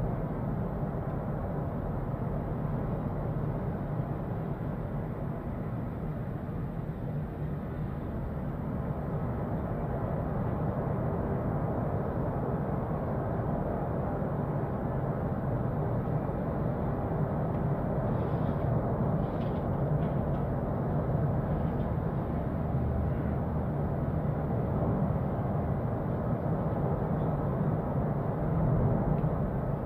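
Erupting volcano's continuous deep rumble, heard from a distance, swelling slightly near the end.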